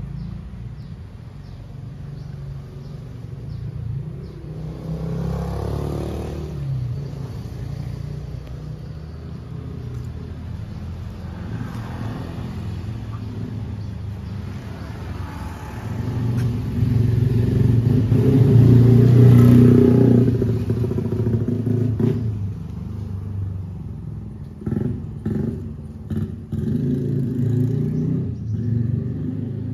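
Motor vehicles passing on a nearby road, engines rumbling. Several pass one after another, the loudest about two-thirds of the way through, and a few short knocks follow near the end.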